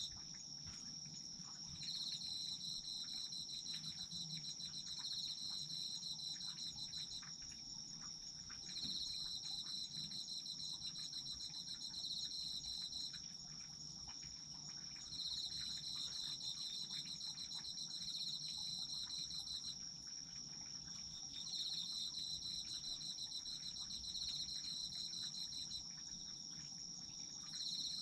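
Autumn insects singing in chorus. One insect keeps up a continuous high trill. Another sings a lower pulsed trill in bouts of about five seconds, pausing briefly between them.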